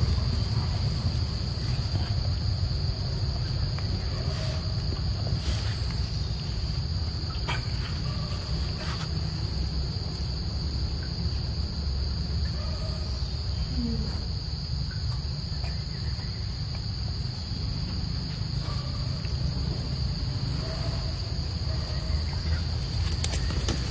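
Steady insect chorus, an even high-pitched trill that holds throughout, over a steady low rumble, with a few faint clicks.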